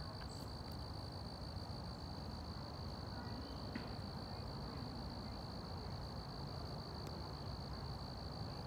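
Insects chirping in a steady high-pitched chorus, with a low rumble of wind or handling noise underneath.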